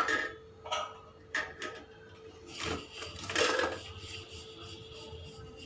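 A spoon clinking and scraping against a metal kadai while the curry base is handled: a few short clinks in the first second or so, then two longer scrapes around the middle.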